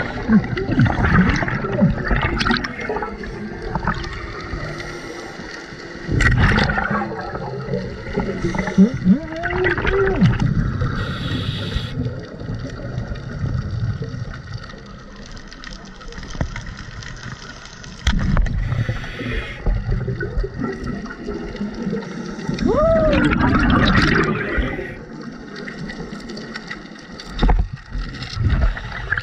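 Scuba regulator breathing underwater: exhaled bubbles gurgling and rushing out in bursts every few seconds, heard through the camera housing.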